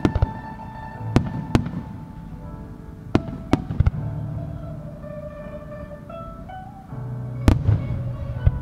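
Aerial firework shells bursting with sharp bangs, mostly in pairs a fraction of a second apart, the loudest near the end. Music with held notes and a short melody plays underneath.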